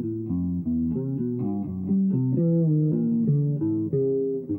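Instrumental music: plucked guitar and bass playing a quick run of low notes.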